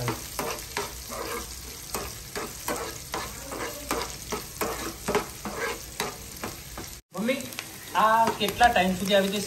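Onion, garlic, dried red chillies and whole spices sizzling in hot oil in a frying pan, stirred with a steel spoon that scrapes and taps the pan again and again.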